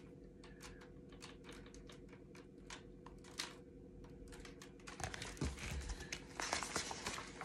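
Faint rustles and soft clicks of a hardback picture book being handled and its page turned, busier over the last couple of seconds, over a low steady hum.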